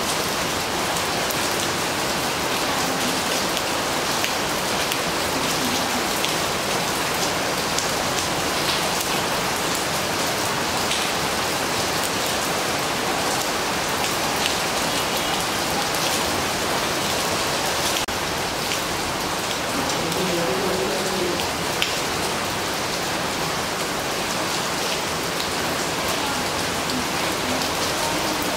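Steady gentle rain falling on a leafy flowering shrub, an even wash of rain with many separate drop hits on the leaves.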